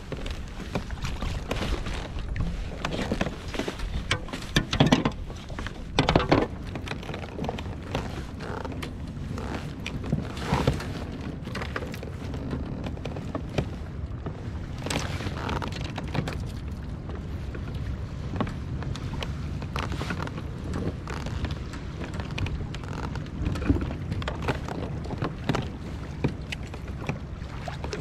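Scattered knocks and clatter aboard a small fishing boat over a steady low hum, with a cluster of sharper knocks early on.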